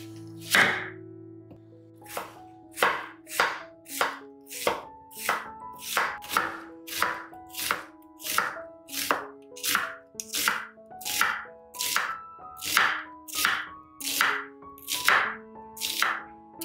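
Cleaver-style knife slicing a peeled onion on a wooden cutting board. One heavy chop about half a second in splits the onion, then from about two seconds in comes a steady run of slicing strokes, about one and a half a second, each ending in a knock of the blade on the board.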